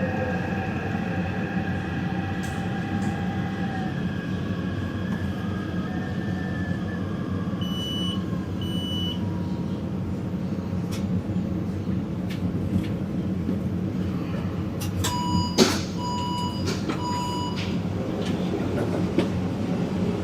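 Taipei Metro train running with a steady rumble and a whine that slowly falls in pitch at the start. Two short high beeps come about eight seconds in, and three lower beeps with a sharp click come a few seconds before the end.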